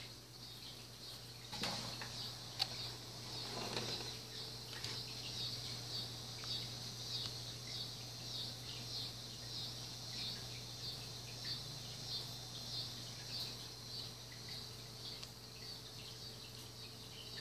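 Insects outdoors chirping in a steady high-pitched pulsing chorus, about one to two pulses a second. Rustling and a couple of clicks between about one and four seconds in.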